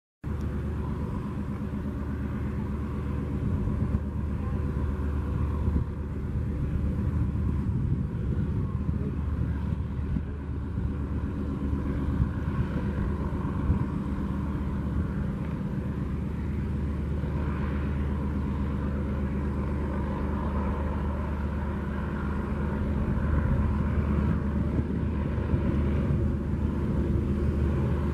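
Single radial piston engine of a float-equipped de Havilland DHC-2 Beaver seaplane running steadily as the aircraft taxis on the water, a constant low drone with no big change in pitch.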